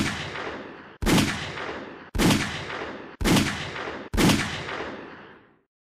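Five 9mm pistol shots from a pocket pistol with a roughly 3-inch barrel, firing DoubleTap 115-grain +P jacketed hollow points, about one a second. Each sharp report rings out briefly and is cut off abruptly as the next shot begins.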